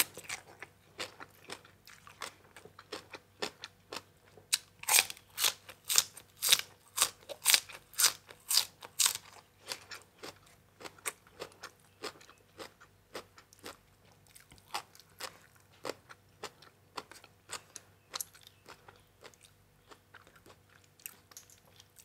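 Close-up crunching and chewing of a person eating som tam with crisp raw vegetables such as bitter gourd and cha-om. The bites are loudest in a quick run of crunches about five to nine seconds in, then softer chewing.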